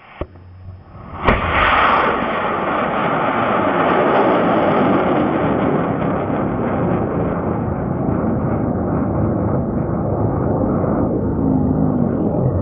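Amateur rocket motor igniting with a sharp crack about a second in, then a loud steady rushing noise of the motor burn that slowly fades as the rocket climbs.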